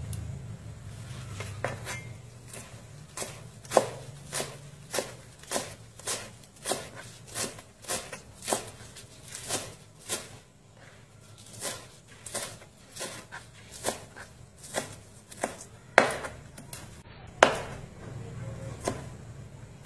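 Cleaver chopping Vietnamese coriander and spring onions on a plastic cutting board: a steady run of knife strikes, about one and a half to two a second, with a short break around the middle.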